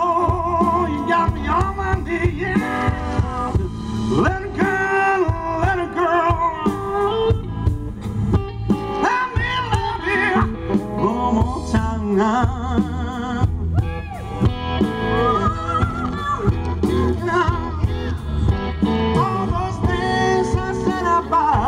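Live blues band playing: a man singing lead, with vibrato on held notes, over a drum kit, electric bass and guitar.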